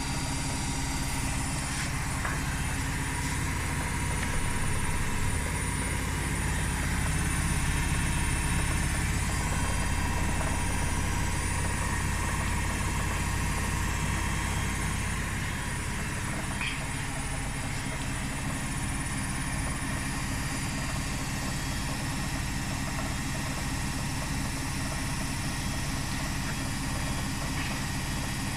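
Arctic front-loading washing machine spinning its drum at high speed in the final spin of its quick program, a steady motor and drum hum. The deep hum eases off somewhat about halfway through.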